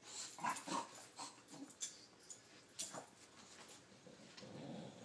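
An English bulldog and a puppy play-wrestling: a string of short, irregular breathy dog sounds and a few brief whimpers, with a lower, longer sound near the end.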